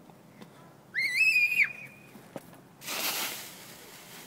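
A child's high-pitched squeal lasting under a second, then the crunching rustle of dry autumn leaves as she lands in a leaf pile.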